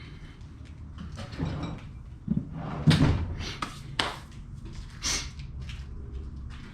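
A handful of separate knocks and clicks from tools and intake parts being handled and fitted under the hood, the loudest about three seconds in.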